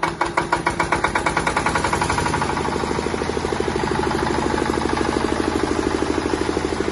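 10 kVA Bajaj M diesel generator set in its open, unsilenced 'noise version', running just after starting. Its firing beats quicken over the first couple of seconds, then settle into a fast, steady chug.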